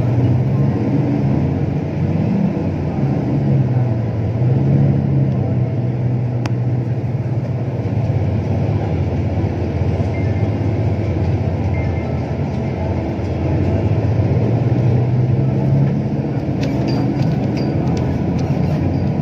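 Engine and road rumble of a moving road vehicle heard from on board, steady and loud, with the engine note rising and falling a few times as the vehicle speeds up and slows.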